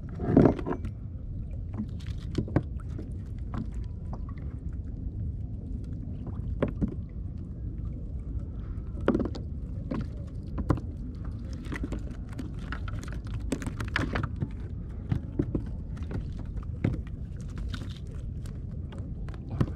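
Scattered knocks and taps on a plastic kayak hull as small fish are unhooked from a multi-hook line and set down on the deck, over a steady low rumble.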